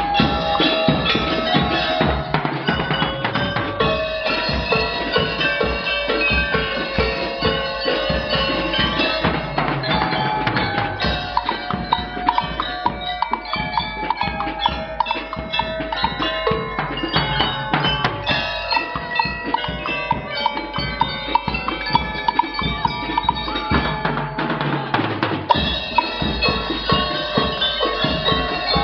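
A school drum and lyre corps playing: drums and cymbals keep a steady beat under the ringing melody of bell lyres.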